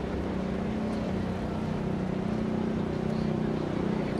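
Busy city street ambience at a pedestrian crossing: a steady low drone of traffic engines with background voices of passers-by.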